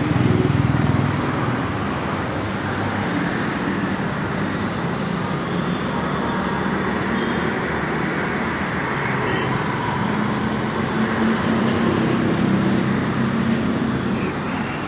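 Steady road traffic on a busy city street, the mixed hum of engines and tyres going past.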